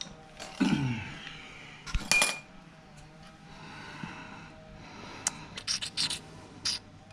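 Handling a rubber air-induction hose and a metal hose clamp on a dirt bike: rubbing and scraping, with a sharp metallic clink about two seconds in and a few small clicks near the end. A short sound falling in pitch comes just under a second in.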